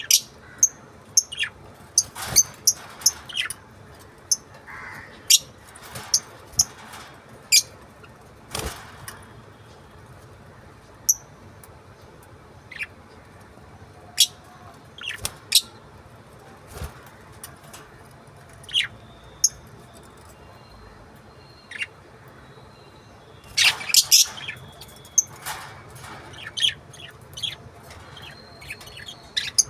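Small pet parrots giving short, sharp, high-pitched chirps and squawks at irregular intervals, with a quick flurry of several calls about three-quarters of the way through.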